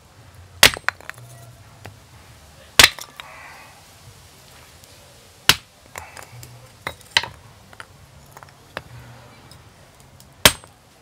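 Hand axe chopping thick wooden blocks into smaller pieces: five sharp cracks a couple of seconds apart, with smaller knocks between them.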